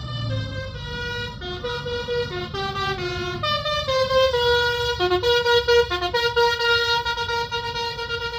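A bus's telolet basuri musical air horn playing a tune of short stepped notes that settle into longer held notes near the end, over low engine rumble.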